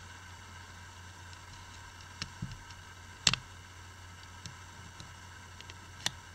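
A few small sharp clicks and taps from handling an opened Xperia Z1 smartphone, its back cover removed. The loudest click comes a little over three seconds in and the last near the end. A steady low hum runs underneath.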